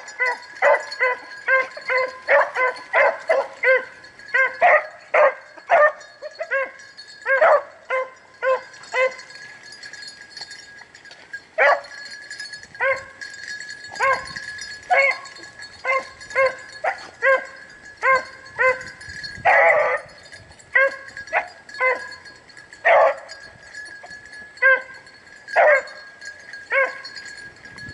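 Rabbit-hunting hounds baying in short, repeated barks as they run a rabbit's scent trail. The barks come in a quick string for the first eight seconds or so, stop briefly, then go on spaced about a second apart.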